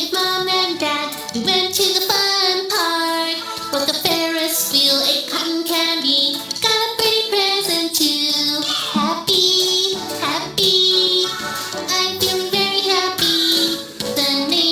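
Children's song: a child-like voice singing a melody over a music backing.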